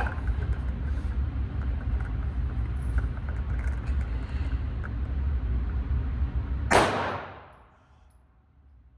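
A single pistol shot, a loud sharp crack with a short reverberant tail, about two-thirds of the way in, over a steady low rumble that drops away after the shot.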